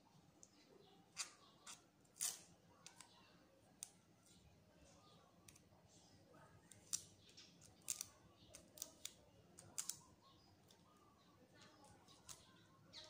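Light, irregular clicks and ticks of a small adhesive dust-removal sticker being pressed onto and lifted off a smartphone's glass screen to pick up dust.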